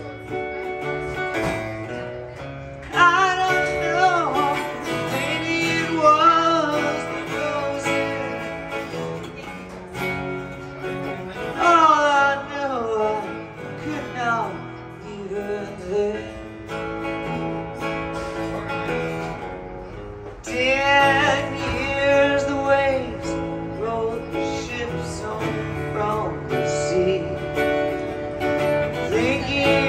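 Live acoustic guitar played by a man singing into a microphone, with his voice coming in long sung phrases and the guitar carrying on between them.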